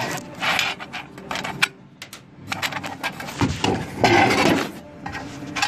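Irregular knocks, clicks and rattling clatter from a vending machine being handled to collect its money.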